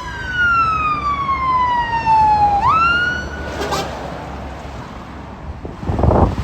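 Emergency vehicle siren wailing: a long falling sweep, a quick rise, then it cuts off a little past halfway. A short burst of rushing noise follows near the end.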